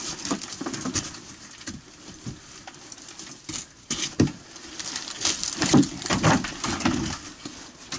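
Firefighter's axe knocking and prying at nailed wooden ceiling boards around a stove chimney, with irregular knocks and wood cracking, busiest in the second half. The ceiling is being broken open to reach smouldering insulation around the chimney.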